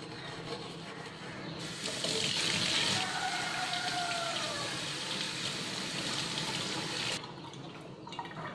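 Steel wool scrubbing a stainless steel pan, then a kitchen tap turned on about a second and a half in, running water onto the pan to rinse it. The water splashing on the metal brings out a faint ringing note that slides downward, and the tap shuts off suddenly about seven seconds in.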